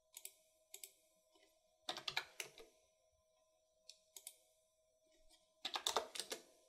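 Computer keyboard keys typed in a few short bursts, the loudest cluster near the end, with a faint steady tone underneath.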